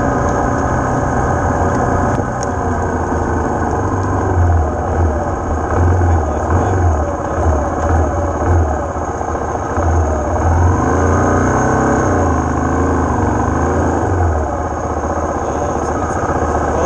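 Dirt bike engine running as the bike rides a rough dirt track, the revs rising and falling over and over, most clearly about ten to fourteen seconds in. A steady thin high whine sits over it.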